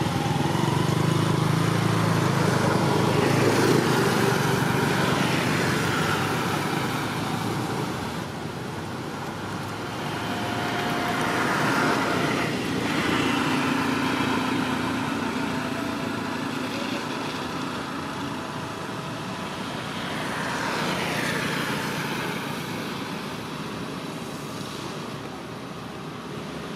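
Road traffic passing on a wet road: vehicles go by one at a time, each swelling with tyre hiss and fading away, three times over.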